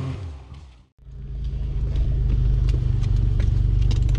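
A 4x4's engine revving, rising and falling in pitch, fades out within the first second and the sound cuts off. Then an off-road 4x4's engine runs low and steady, heard from inside its cab, with scattered light clicks and knocks from the vehicle.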